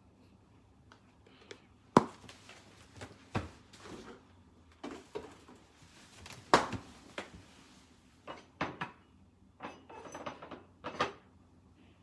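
Kitchen handling noises: a run of separate knocks and clicks as items are put away and picked up, with a sharp knock about two seconds in and the loudest about six and a half seconds in, then a quicker cluster of clicks and knocks near the end.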